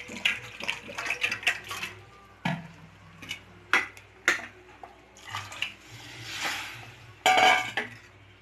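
Steel ladle stirring curry in a stainless steel pressure cooker, clinking and scraping against the pot again and again, with a louder clatter about seven seconds in.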